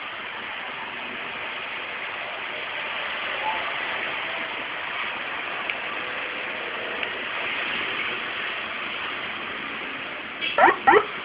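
Steady background noise for most of the stretch, then near the end a few quick rising whoops from a six-tone police siren module through a horn speaker.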